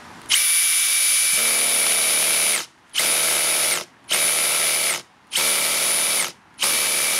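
Makita XGT 40V HP002G cordless hammer drill driving a screw in screw mode on clutch setting 1. It runs with a steady motor whine for about two seconds, then a lower buzzing rattle joins in as the clutch slips once the screw reaches the set torque. Four more short trigger pulls follow, each with the clutch slipping.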